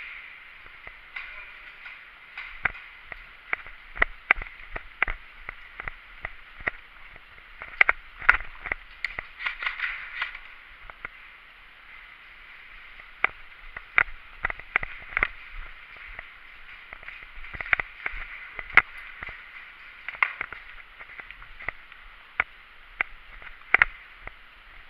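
Airsoft guns firing: scattered sharp single shots with a quick run of shots about eight seconds in, over a steady background hiss.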